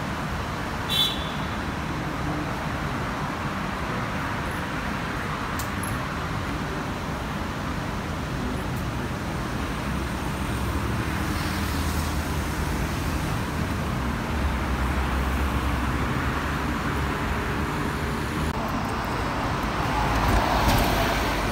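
Steady road traffic noise from a busy multi-lane city road: engines and tyres of passing cars and buses. A brief high chirp sounds about a second in, and the traffic gets louder near the end as a vehicle passes close by.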